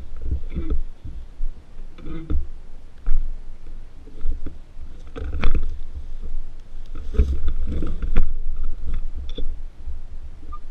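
Irregular low rumbling thumps and rustles on a body-worn camera's microphone, coming in several clusters a couple of seconds apart.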